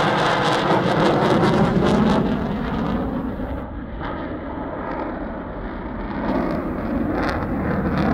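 Eurofighter Typhoon's twin Eurojet EJ200 turbofans during a display pass: a loud, rushing jet noise that fades after about two and a half seconds and swells again near the end.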